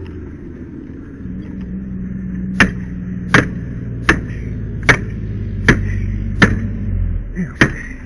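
Seven sharp metal-on-metal blows a little under a second apart, starting about two and a half seconds in: tools being struck to force a padlock. A steady low engine hum runs underneath and stops near the end.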